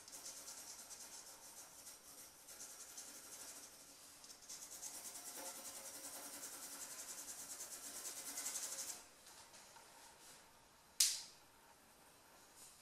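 Graphite pencil scratching on drawing paper in rapid back-and-forth shading strokes, faint, stopping about nine seconds in. A single sharp tap follows a couple of seconds later.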